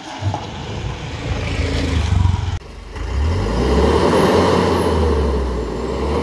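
Vehicle engine running, with a brief drop about two and a half seconds in. After that it is louder and pulls hard.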